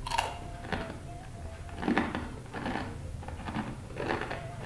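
Crisp, spicy jengkol crackers (kerupuk jengkol) crunching as a person bites and chews: about six irregular crunches.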